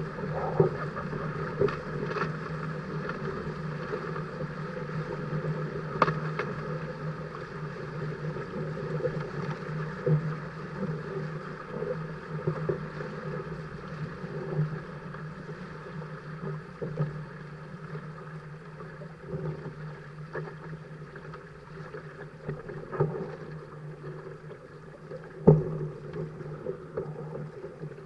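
Dart 15 Sting catamaran under sail: water rushing past the hulls and wind, with a steady low hum and scattered sharp knocks, the loudest about 25 seconds in.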